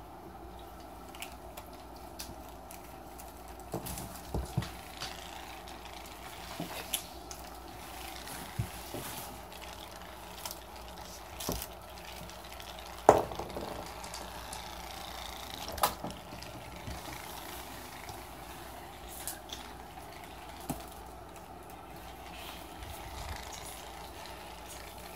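Scattered light taps and knocks of cats pawing and batting a catnip ball on a wood-laminate floor, over a steady room hum. The sharpest knock comes about halfway through.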